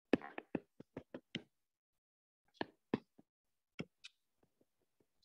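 Light, sharp taps and clicks: a quick run of about nine in the first second and a half, then four or five more spaced out.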